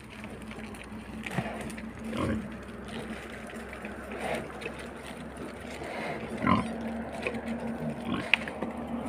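Wild boar and piglets giving short grunts and squeals every second or two over a steady low hum, the loudest call about six and a half seconds in.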